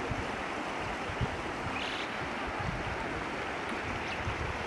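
Floodwater from a river rushing steadily across a road, with wind buffeting the microphone in low thumps.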